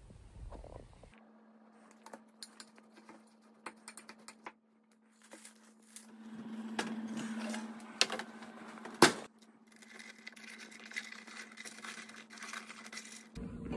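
Kitchen handling sounds from making granola: spoon, metal bowl and baking sheet scraping and clinking, with one sharp clank about nine seconds in, over a steady low hum.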